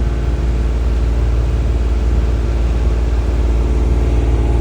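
A sailing yacht's engine running steadily under way, a low, even drone with a constant pitch.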